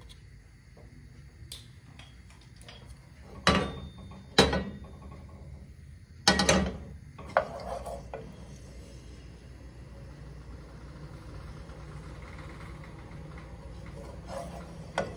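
Spoons knocking against a nonstick wok a few times, with a cluster of knocks about six seconds in, over a steady low hum. There is no frying sizzle: the oil is not yet hot enough.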